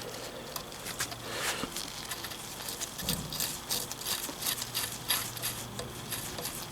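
Scattered small clicks and taps of metal tools and parts being handled at a workbench, with a faint low hum coming and going and a soft thump about three seconds in.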